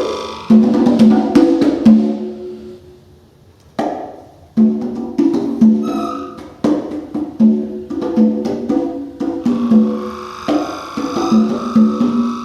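Free-improvised acoustic music: rapid, short, pitched struck notes in clusters, dropping away about two seconds in and starting again about four seconds in. A held high tone sounds over them at the start and comes back near the end.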